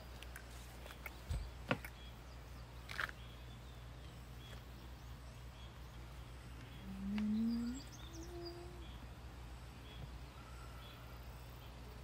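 Quiet outdoor meadow ambience with a steady low rumble and faint, scattered bird chirps. A few light clicks come in the first three seconds, and a brief low, rising voiced sound, the loudest thing here, comes about seven seconds in.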